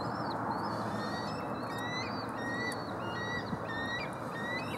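Many short bird calls repeating a few times a second over a steady background rush.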